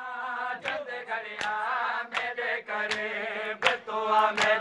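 Men's voices chanting a noha, a Muharram lament, in long held notes. Sharp slaps of hands beating on chests (matam) come in a steady rhythm about every three-quarters of a second.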